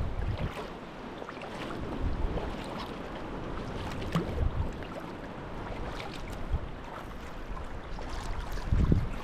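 Sea kayak under way: paddle blades dipping and splashing in the water and sea washing along the hull, with a few low rumbles about every two seconds.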